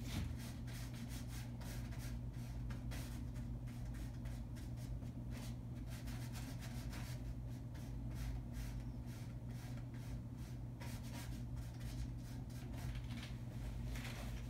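Paintbrush stroking and dabbing on canvas in quick, repeated scratchy strokes, over a steady low hum.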